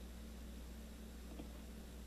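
Quiet room tone: a steady low electrical hum under an even hiss, with one faint tap about one and a half seconds in.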